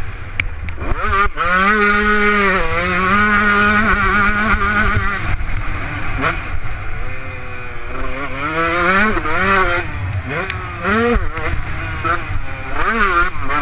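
Kawasaki KX125 two-stroke single-cylinder motocross engine at full race pace, heard from the rider's helmet camera. Its pitch climbs in a long pull about a second in, holds, then rises and drops again and again through the second half as the rider works the throttle and shifts gears.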